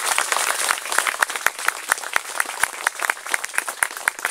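Audience applauding: a dense, irregular patter of many people clapping.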